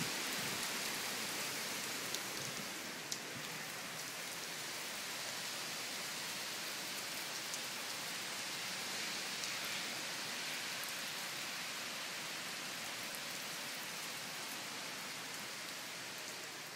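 Steady downpour of hurricane rain: an even hiss with scattered sharp drop ticks.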